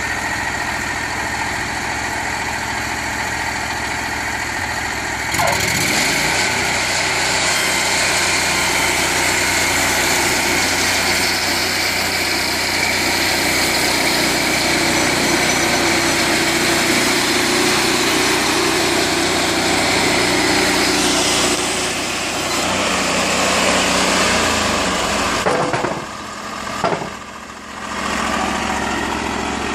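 Gas engine of a Timbery M285 portable bandsaw sawmill running steadily. About five seconds in it grows louder and noisier as the band saws through a log. Near the end it drops back, with a single knock.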